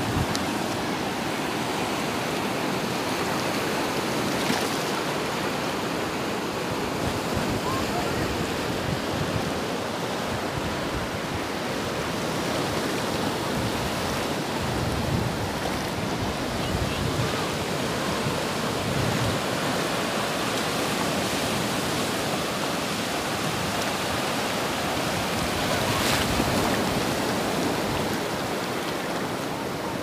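Small sea waves breaking and washing up a sandy shore, a steady rush of surf.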